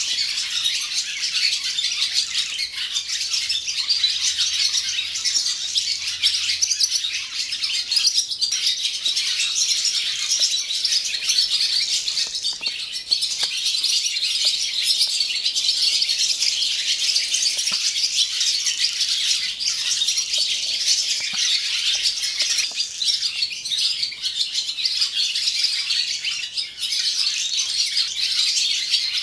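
A chorus of many barn swallows singing their morning song, a dense, continuous twittering that never pauses.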